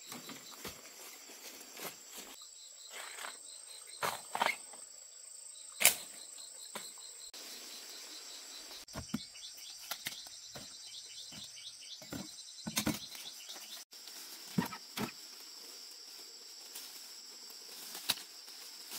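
Insects chirring steadily in a high, even trill, with scattered short knocks and rustles, the loudest knock about six seconds in.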